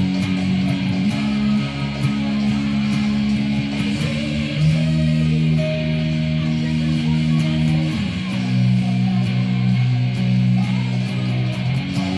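Band rehearsing an instrumental passage: guitar and bass guitar holding chords that change about every three to four seconds, over a steady beat of light high ticks.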